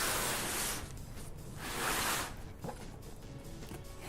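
Cardboard shipping box being opened and handled: two rustling, scraping swishes of cardboard and packaging, the first at the start and the second about a second and a half in.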